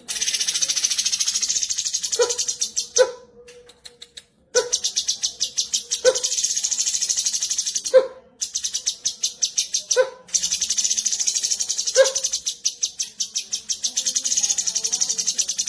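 Cucak cungkok song: long runs of fast, high, rapidly repeated chattering, broken by short pauses. A low, hollow single note sounds about every two seconds on top of the chatter.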